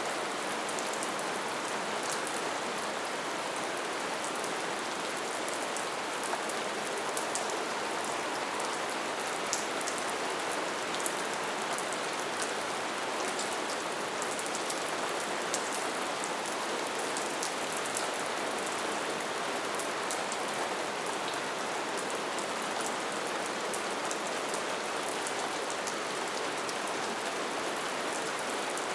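Light, steady rain falling, an even hiss with fine drop ticks scattered through it.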